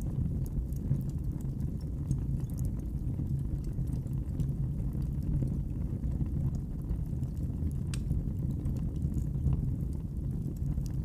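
Fireplace fire burning: a steady low rumble of flame with sparse faint crackles, one sharper pop about eight seconds in.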